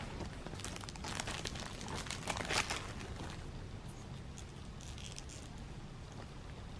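Rustling and crinkling of something being handled, like a plastic bag or paper wrapping. It comes as a run of quick crackles in the first half and turns fainter and sparser after that.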